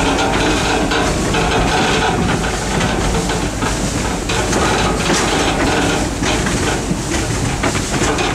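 Steady running noise of a heritage train rolling along a rack railway, its wheels on the rails giving a light, irregular clatter.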